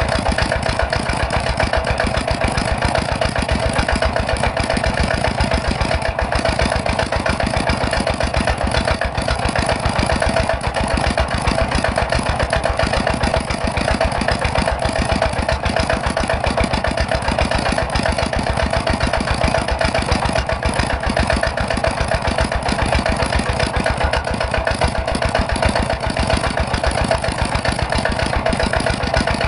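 A miniature rice-milling machine running steadily, its small motor giving a constant hum with one steady tone over a fast, even pulsing rattle.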